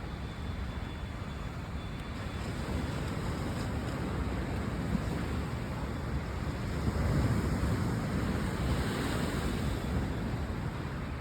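Ocean surf washing against the shore, mixed with wind rushing over the microphone; it swells a little louder about seven seconds in.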